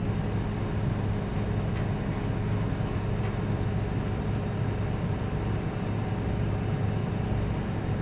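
John Deere 9770 STS combine harvester running steadily at high idle, a constant low hum heard from inside the cab, with the engine held at high idle for a header float-sensor calibration.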